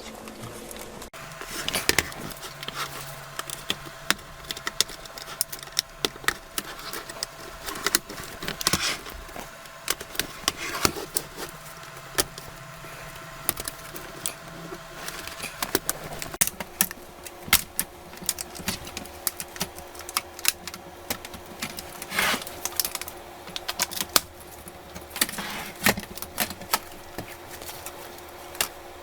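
Irregular clicks, taps and light rattles of small plastic and metal laptop parts and tools being handled during disassembly, over a faint steady hum.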